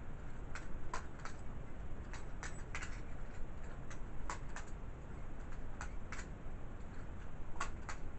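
Butterfly knife (balisong) being flipped open and closed, its handles and blade clicking: a string of sharp, irregular clicks over a steady low background hiss.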